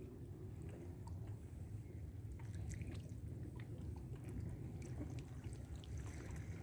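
Shallow sea water lapping and gurgling close by, with many small scattered ticks and crackles, over a steady low rumble of wind on the microphone.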